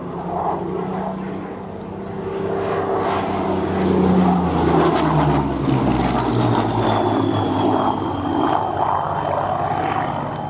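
Rolls-Royce Merlin piston engine of a Spitfire Mk II flying past, growing louder and then dropping in pitch as it goes by.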